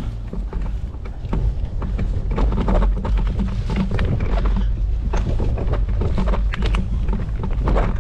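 Bicycle riding over an unpaved dirt trail: a steady low rumble of tyres on the ground, with frequent rattles and clicks from the bike jolting over bumps.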